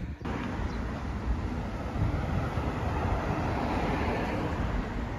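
Steady rushing street noise of road traffic, swelling slightly through the middle.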